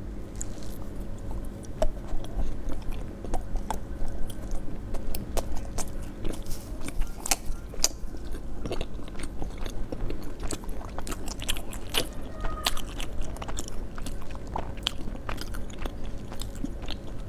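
Close-miked eating of seafood: chewing and biting, with frequent sharp clicks and crunches, over a steady low hum.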